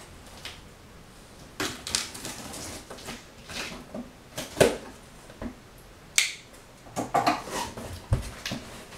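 A cardboard shipping box being opened and its contents handled: scattered rustles and scrapes of cardboard and packing, with a few sharp snaps and a dull thud near the end.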